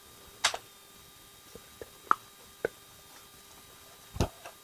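A few sharp plastic clicks and taps, then a dull thump near the end, from an A4tech KRS-85 keyboard being handled as its rear height-adjustment feet are worked.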